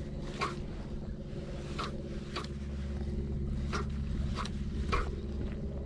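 Fishing reel being cranked while a jerkbait is worked, giving sharp clicks spaced irregularly, roughly every half second to a second and a half, over a steady low hum.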